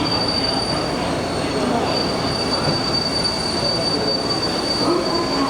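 Electric commuter train moving at a station platform: a steady rumble of the cars with a high wheel squeal held throughout.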